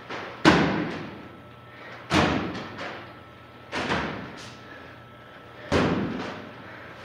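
Heavy black trash bags full of wet clay thudding onto a bare floor as they are dropped and slammed down: four heavy thuds about every second and a half to two seconds, with lighter knocks between them, each ringing briefly in a bare, empty room.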